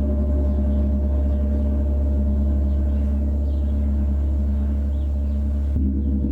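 Gong played continuously in a steady, sustained wash: a strong low drone with many overlapping ringing overtones.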